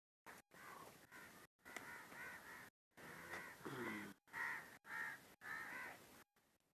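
Crows cawing, a quick series of short harsh caws one after another, with a brief low falling sound midway.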